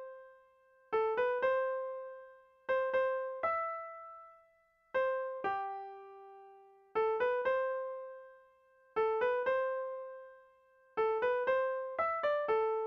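Slow, unaccompanied melody played one note at a time on a piano-toned keyboard. Short phrases of two to four notes come about every two seconds, each note ringing and fading away.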